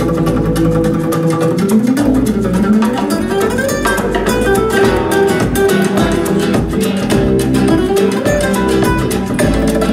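Music: fast plucked guitar in a flamenco style, with quick runs of notes.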